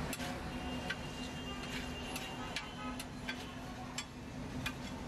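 Metal spatula clinking and scraping on a flat steel griddle as spiced chicken pieces sizzle, sharp irregular clicks about twice a second over a steady hum.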